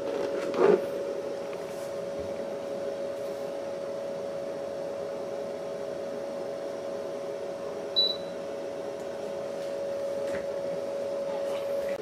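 Alpicool portable compressor car fridge running with a steady, even hum on one tone. A single short high electronic beep sounds about eight seconds in.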